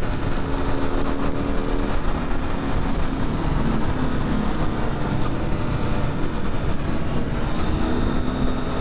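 Motorcycle engine running under way, with heavy wind noise; its note shifts a little in pitch now and then.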